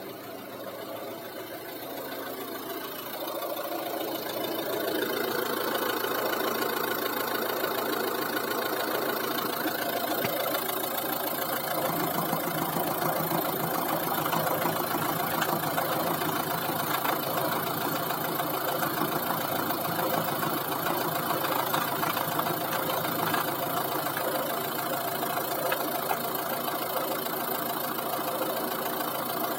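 1.6 HDi DV6C four-cylinder diesel engine idling warm, with the soft knock that its owner says appears only once it has warmed up and cannot identify. It grows louder over the first five seconds or so, then runs steadily.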